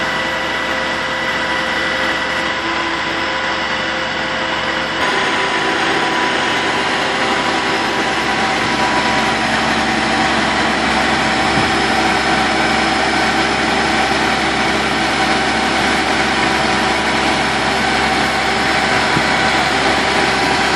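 Utility bucket truck's engine running steadily to power the hydraulic boom as it lowers a pole-top transformer. It is a continuous drone with steady whining tones, and it gets louder about five seconds in.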